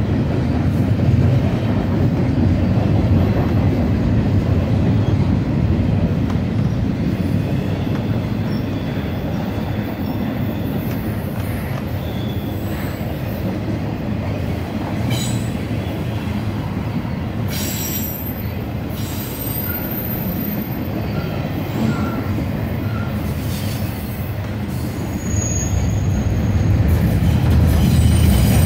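Intermodal freight train's container and trailer cars rolling past on the rails: a steady, heavy rumble of wheels on track. From the middle onward there are brief high-pitched wheel squeals, and the rumble grows louder near the end.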